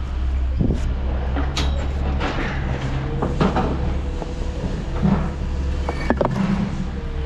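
A steady low engine rumble with scattered knocks, clicks and rattles over it.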